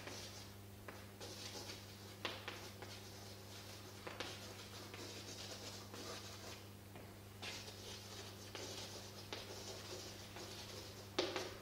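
Chalk scratching on a blackboard in short, irregular strokes as words are written out, with a slightly louder stroke near the end. A steady low electrical hum sits underneath.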